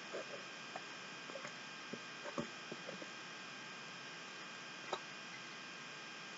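Faint scattered clicks and crinkles of trading cards being worked into a thin clear plastic sleeve, the sharpest about two and a half seconds in and another near five seconds, over a steady electrical hum and hiss.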